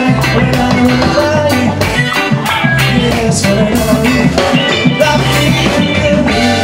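Live reggae band playing with electric guitars, keyboards and drum kit over a bass line, in a steady, evenly repeating rhythm.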